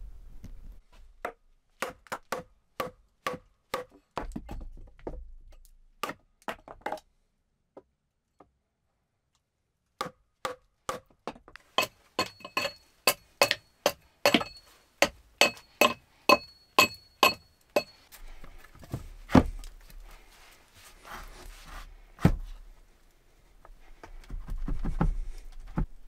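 A hatchet struck with its back like a hammer, driving nails into plank bench boards. Runs of sharp knocks come about two a second, broken by a few seconds of silence. The later, faster run has a high metallic ring, and two heavier separate thuds follow.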